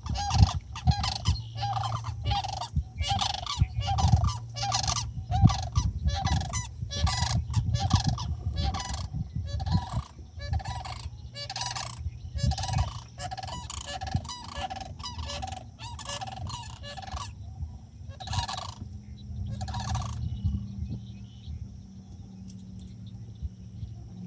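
Florida sandhill cranes calling: loud, rolling, rattling cries repeated about twice a second for some seventeen seconds, then two more spaced calls before they stop. A steady high insect trill comes up in the last few seconds.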